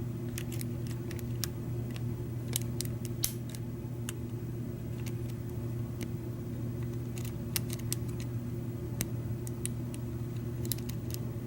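Small irregular metal clicks and ticks of lock picks and a tension wrench working in a Schlage pin-tumbler lock cylinder, over a steady low hum.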